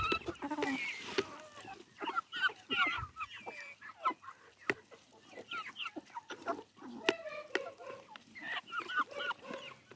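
Backyard chickens clucking, many short calls overlapping one another, with a few sharp clicks in between.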